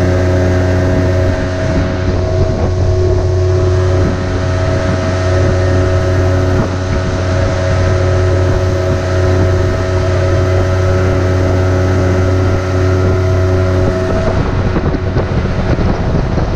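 A small boat's outboard motor runs steadily at speed, with water rushing along the hull and wind on the microphone. About 14 s in the engine tone eases off as the boat slows.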